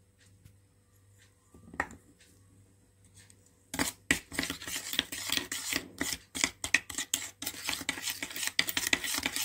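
Plastic spoon stirring and scraping thick homemade paint (powder, glue and water with red colouring) in a glass bowl. After a quiet start with one light knock, fast clicking and scraping begins about four seconds in and keeps going.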